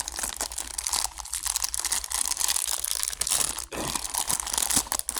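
Packaging being torn open and crinkled by hand, with dense, irregular crackling and tearing.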